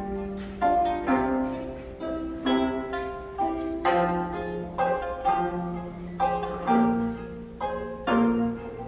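A gayageum, geomungo and pipa trio playing a slow melody: plucked notes, roughly one or two a second, each struck sharply and left to ring and fade, over lower notes held under them.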